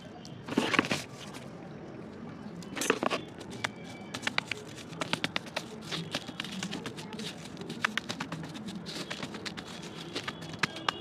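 Dry clay lumps being crushed and ground with a round stone on newspaper: two longer crunching scrapes in the first few seconds, then a steady run of quick clicks and crackles as small pieces break and crumble.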